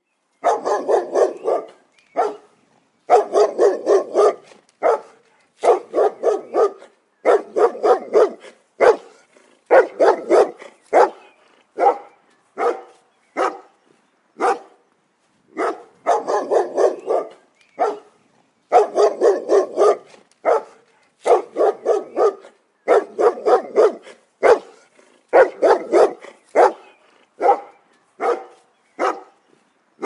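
A dog barking over and over, in quick runs of several barks with short pauses between.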